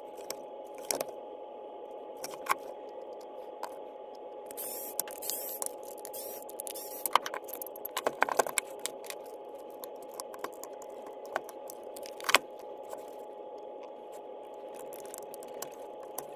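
Hand work on a Milwaukee M18 battery pack during a circuit board replacement: scattered clicks and taps of parts being handled, with a stretch of scraping about five seconds in, over a steady hum.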